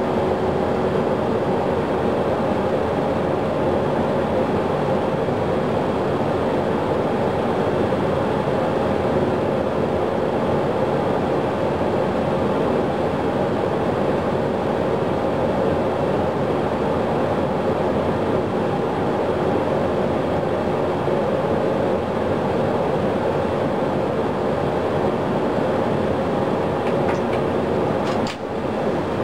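Boeing 737 jet engine turning on its starter during a start attempt, a steady rumbling whine that does not rise in pitch: a hung start, with the engine stalled at about 50% N2 and not accelerating to idle.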